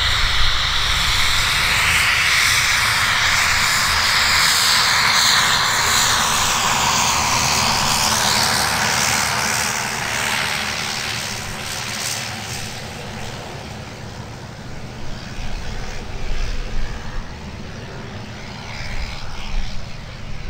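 An aircraft passing close by. It is loud for the first half, with a high whine that slides down in pitch, then fades slowly away.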